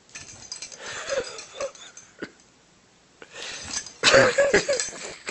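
A bulldog's noisy breathing and short whimpers in two bouts, the louder one about four seconds in, as it balks at going down steps.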